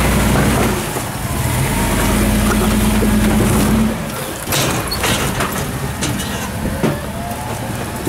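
Rock-crawling Jeep's engine held at steady revs under load as it climbs a steep rock ledge, easing off about a second in, pulling again, then dropping back at about the midpoint. After that come scattered knocks and scrapes over the quieter engine.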